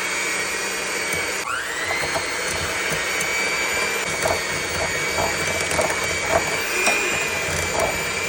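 Electric kitchen mixer motor running at a steady high whine, dropping and spinning back up about a second and a half in, with a few light ticks later on.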